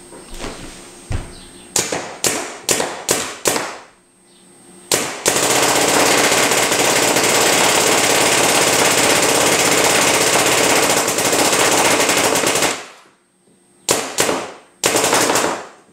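DLX Luxe electropneumatic paintball marker firing in semi-automatic mode. It fires a handful of single shots about a third of a second apart, then a long fast string of shots lasting about seven seconds that runs together into one continuous rattle, then a few more single shots near the end.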